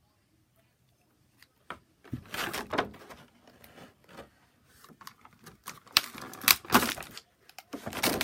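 Action-figure packaging being handled and pulled apart: crinkling and tearing in several loud bursts, starting about two seconds in.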